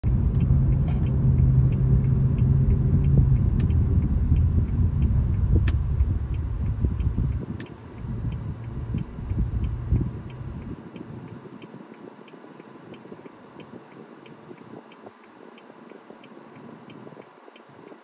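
Car in motion: a low rumble of road and engine noise that eases off between about seven and eleven seconds in as the car slows to a stop. A faint, steady ticking at about two to three ticks a second runs throughout, with a few sharp clicks in the first half.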